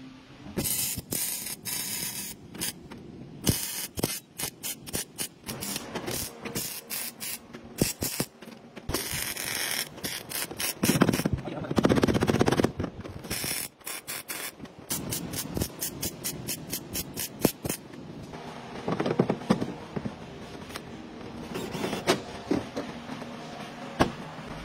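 Small hammer tapping on a car's sheet-metal body panel in quick runs of sharp taps, several a second, with a few denser, louder stretches.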